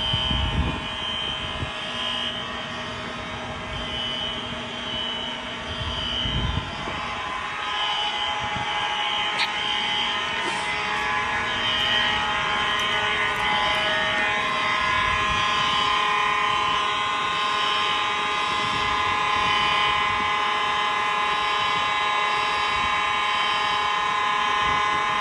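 Several fire alarm horns sounding at once, a blend of steady tones with a high-pitched tone pulsing on and off about once a second. A louder steady mid-pitched tone comes in about halfway through.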